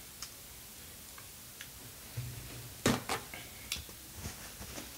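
A few soft, scattered clicks, then a paper napkin crackling as it is pulled out and unfolded about three seconds in, the loudest sound, followed by smaller paper rustles.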